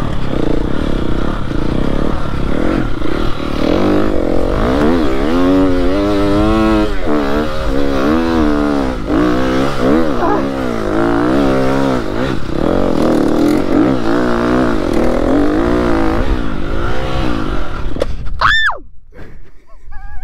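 KTM motocross bike's engine revving hard, its pitch rising and falling with the throttle. Near the end the engine sound drops away suddenly.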